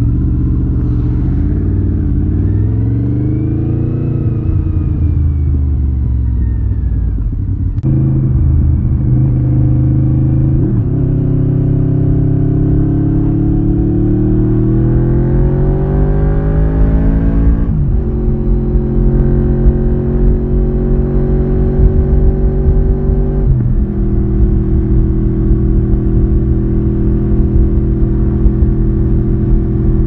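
Honda VFR750's 90-degree V4 engine and exhaust heard from the rider's seat on the move. The revs swell and fall, then climb steadily and drop sharply twice as it shifts up, holding level in between. Wind noise rumbles underneath.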